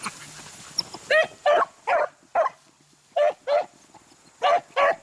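Beagles barking in short, high calls, about eight of them, mostly in pairs, starting about a second in: hounds giving tongue while working a rabbit's trail.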